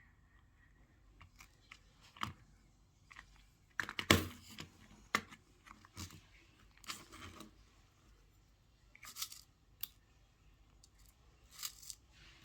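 Irregular clicks, scrapes and rustles of small objects being handled close to the microphone. The loudest is a sharp scrape about four seconds in.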